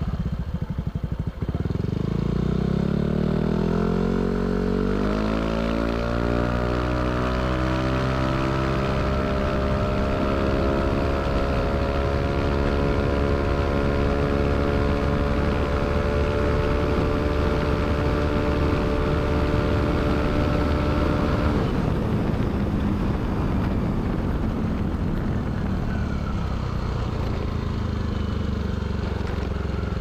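Yamaha Aerox 155 scooter's single-cylinder engine through a K'RACE standard racing aftermarket exhaust, accelerating on the road. The revs climb over the first few seconds and hold high and steady. About 21 seconds in the throttle closes and the engine note drops away, leaving rushing wind and road noise.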